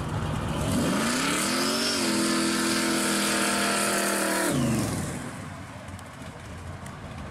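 Supercharged V8 in a 1970s Chevrolet Vega wagon accelerating hard past: the engine's pitch rises over about a second and then holds at high revs. About four and a half seconds in the throttle lifts, and the exhaust note drops away as the car pulls off into the distance.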